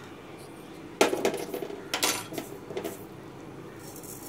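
Metal spoon striking an aluminium kadai as mustard seeds are tipped into the oil for tempering: two sharp clinks about a second apart, then a few lighter taps.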